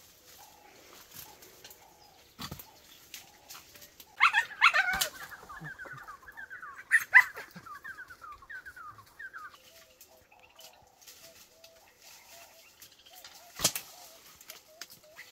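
Hunting dogs barking, a loud outburst about four seconds in followed by a quick run of shorter yaps for several seconds. A sharp crack comes a couple of seconds in and another near the end.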